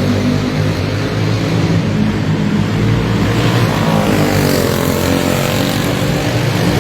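Several clone-class go-karts' small single-cylinder four-stroke engines running hard together in a race. The engines' overlapping tones shift in pitch as karts pass, with one sliding down about four to five seconds in.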